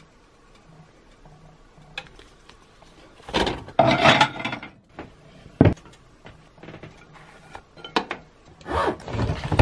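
Kitchen handling sounds. A ceramic dinner plate scrapes as it is pulled off a stack about three seconds in, a single sharp clack follows a second or so later, and there is more scraping and clatter near the end.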